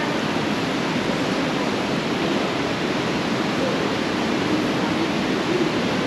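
Waterfall inside a cave, rushing water making a steady, even noise.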